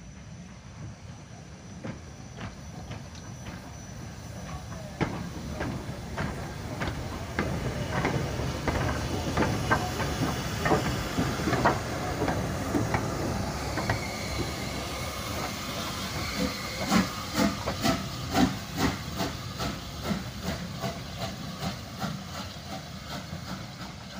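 Steam locomotive passing slowly at close range: a steady hiss of steam with a beat of knocks and clanks from the wheels and motion. It builds from about two seconds in, is loudest through the middle, and eases off near the end.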